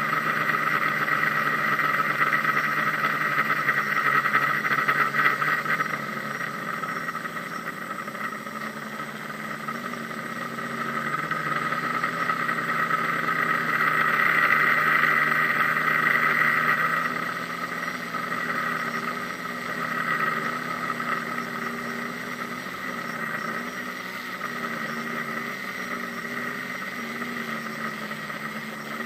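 DJI Flame Wheel F550 hexacopter's six electric motors and propellers whining steadily, heard from a camera mounted on the airframe. The whine shifts a little in pitch as the throttle changes, and is louder in the first few seconds and again around the middle.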